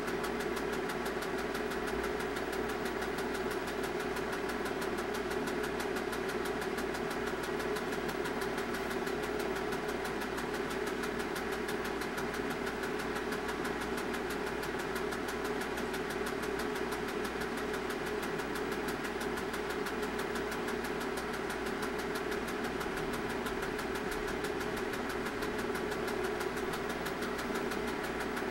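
Film projector running steadily: an even motor whir with a fast, regular chatter from the shutter and film transport.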